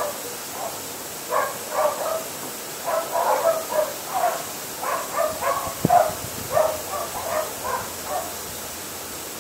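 Animal calls: short, harsh calls several to the second in irregular clusters, thinning out near the end, over a faint steady hiss.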